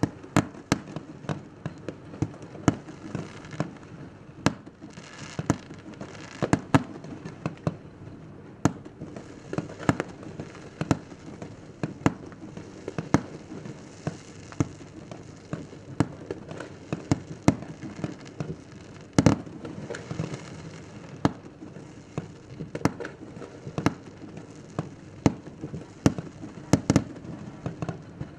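New Year's fireworks going off all around: a steady run of sharp bangs at irregular intervals, one or two a second, some louder and nearer than others, over continuous crackling.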